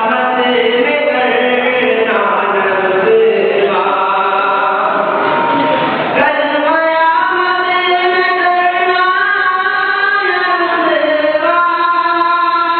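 Melodic chanting voices holding long notes that slide slowly up and down.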